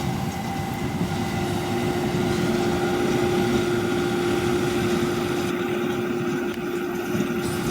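John Deere 7530 tractor running steadily under load while pulling a Massey Ferguson 2270 large square baler at work, a continuous engine-and-machinery drone with a constant tone.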